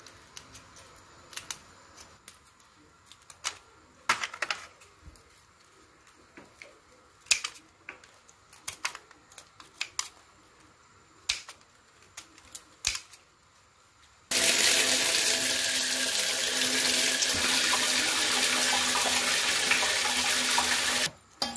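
Scissors snipping through raw crab shell and legs in scattered sharp clicks. About two-thirds of the way through, water suddenly starts running steadily from a tap, then cuts off abruptly near the end.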